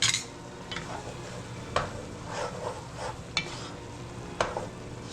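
Ground chicken sizzling as it fries in a pot, stirred with a utensil that scrapes and knocks against the pot a few times.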